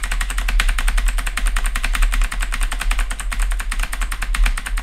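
Computer keyboard arrow keys (right and up) pressed over and over in a fast, even clatter of about a dozen clicks a second.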